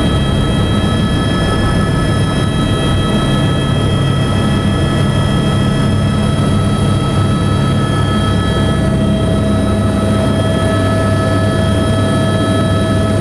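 Helicopter engine and rotor heard from inside the cockpit: a loud, steady drone with a steady high whine over it. The low hum drops a little in pitch about eight seconds in.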